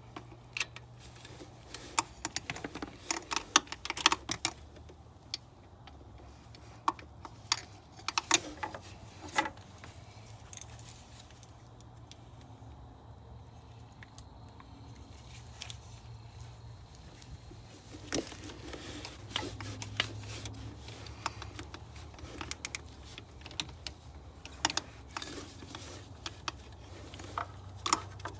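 Hand tools clicking and clinking irregularly against metal in a car's engine bay, with a steady low hum underneath.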